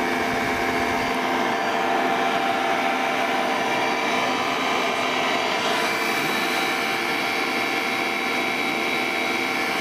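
Electric motor-generator set running steadily: a continuous whirring hum with several steady tones, including a high whine.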